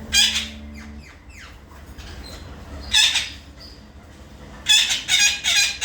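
Pet parrot-type birds squawking in short, harsh calls: one just after the start, another about three seconds in, and a quick run of four near the end, with a few fainter falling chirps between.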